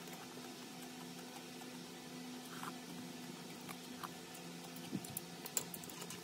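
Quiet room tone with a steady low hum and a few faint, light clicks of tableware and chopsticks being handled; the sharpest click comes near the end.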